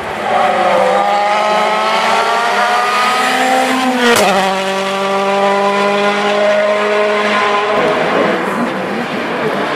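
World Rally car's 1.6-litre turbocharged four-cylinder engine at full throttle: the note climbs for about four seconds, a sharp crack and drop in pitch marks an upshift, then it pulls up again in the next gear before dropping away near the end.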